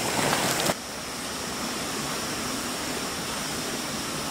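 Steady rush of a shallow creek running over rocks. A few faint crunches of footsteps on gravel come in the first second, then the sound drops to a quieter, even rush.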